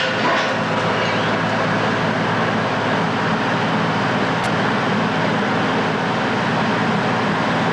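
Heavy demolition machinery running steadily, a diesel engine under load over a dense, continuous noise of work, with a few sharp knocks near the start.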